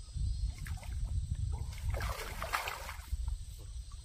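Water splashing and dripping as a heavy keep net full of crucian carp is hauled up out of the water, with the fish thrashing inside it. Short splashes come and go over a low steady rumble.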